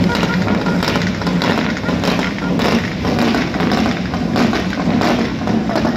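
Big truck's engine running steadily as it rolls slowly forward, with crowd voices mixed in.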